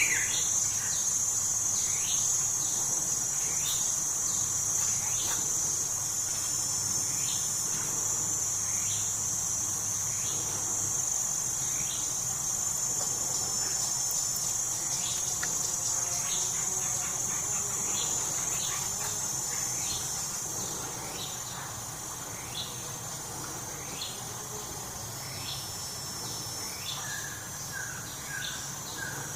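Steady, high-pitched insect chorus of crickets or cicadas, with short downward-sliding calls repeating about once a second and a brief run of quick notes near the end.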